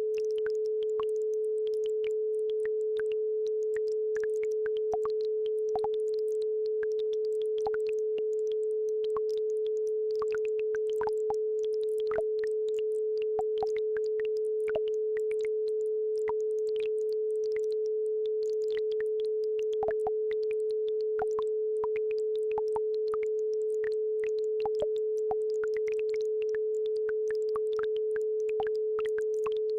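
Steady electronic sine tone at 432 Hz, the loudest thing throughout, over faint, irregular babbling-brook water blips.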